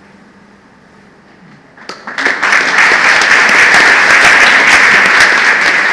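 An audience starts applauding about two seconds in, after a short quiet moment; the clapping quickly builds to a loud, steady level and keeps going.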